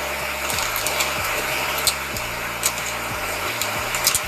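A steady rushing noise, like a blower running, with a few light clicks and knocks of equipment being handled.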